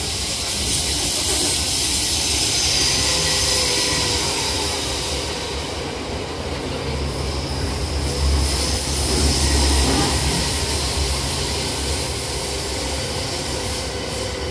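Electric commuter train running in a subway tunnel, heard from inside the car: steady wheel and track rumble with a faint motor whine. The low rumble swells about eight to ten seconds in.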